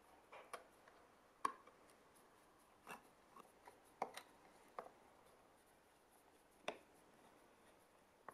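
Flat-blade screwdriver driving small brass screws through a rusty metal hook into wood: about seven sharp clicks and scrapes spread out over several seconds, as the blade catches and turns in the screw slots, the loudest about a second and a half in.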